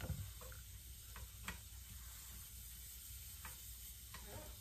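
A few scattered light clicks and taps of chopsticks working in a cast-iron skillet and charred tomatoes dropping into a plastic blender cup, over a faint sizzle from the hot pan.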